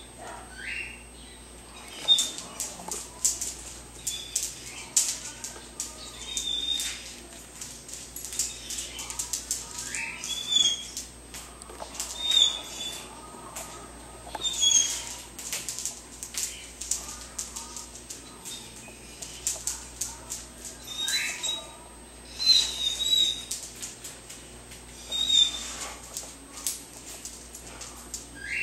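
Wire-mesh live-catch cage trap clicking and rattling in irregular clusters as a trapped gray squirrel clings to and moves against the mesh. Short high squeaks, some rising in pitch, come every few seconds.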